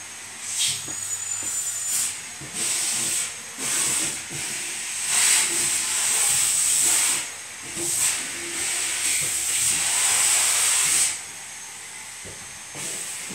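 A run of hissing bursts, some short and some lasting a few seconds, with short gaps between them and a thin high whistle early on. In the doll play it stands for the neighbour cleaning next door.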